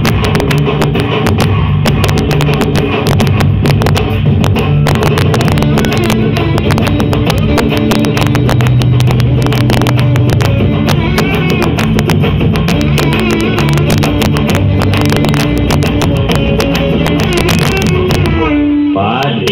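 Loud amplified music with a guitar and a fast, dense beat, played through stage speakers. Near the end a short falling glide briefly breaks the music before it resumes.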